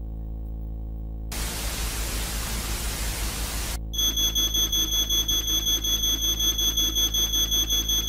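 Low droning synth bed, cut through by a burst of static hiss from about a second in until nearly four seconds. Then a steady, high-pitched alert tone starts over a fast pulsing beat.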